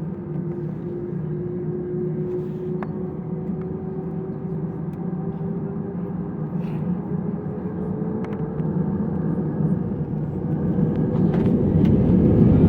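Airbus A320's jet engines heard from inside the cabin, their hum rising steadily in pitch as they spool up, with the rumble growing louder near the end: the engines coming up to takeoff thrust.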